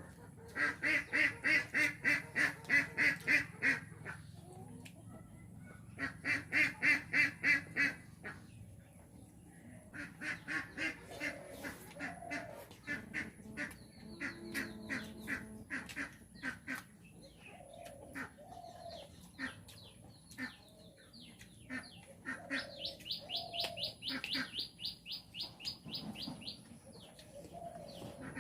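Birds calling in bursts of rapid repeated notes, about four a second, each run lasting two to three seconds, with shorter single calls between. Near the end comes a faster, higher-pitched trill of about three seconds.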